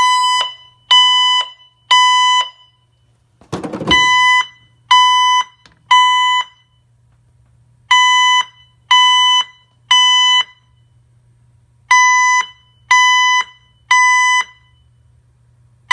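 Honeywell L5100 alarm panel sounding its alarm for a tripped carbon monoxide zone: loud high beeps in groups of three, about one a second, with a short pause between groups, repeated four times. A single thump comes just before the second group.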